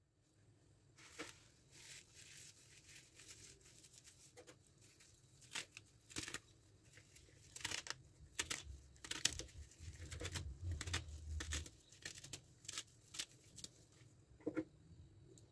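Kitchen scissors snipping through a bowlful of fresh fenugreek leaves: irregular sharp snips, with the rustle of the leaves being bunched by hand.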